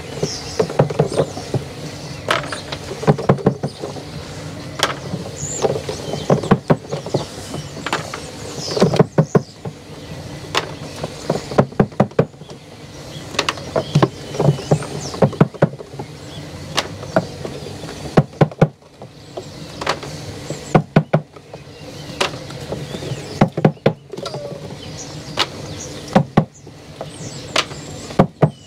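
Wooden beehive frames knocked and clattering as they are tapped out and handled after steaming, shaking loose the melted comb residue. The knocks are sharp and irregular, over a steady hiss of steam venting from the melter.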